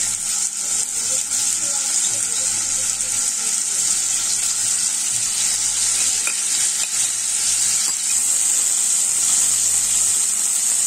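Marinated chicken pieces frying in hot oil, a loud, steady sizzle.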